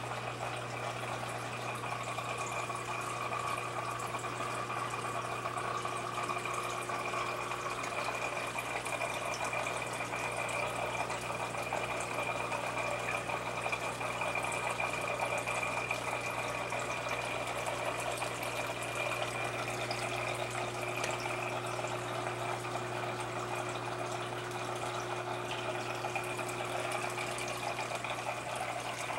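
Aquarium filter and pump running: steady trickling, splashing water over a low, even hum, with a faint high whine.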